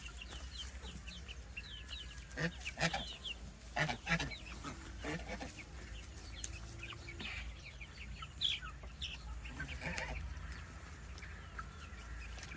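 Roosters clucking, with scattered short sharp sounds over a low steady hum.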